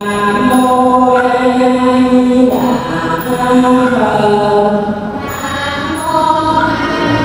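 Vietnamese Buddhist sutra chanting (tụng kinh) by monks and devotees, voices intoning long held notes that glide from one pitch to the next every couple of seconds.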